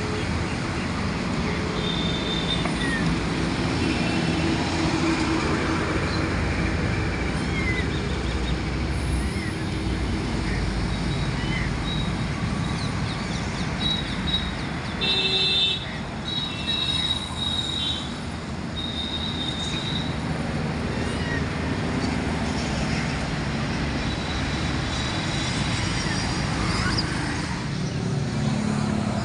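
Steady road traffic noise from passing cars and motorcycles, with a few brief high tones around the middle.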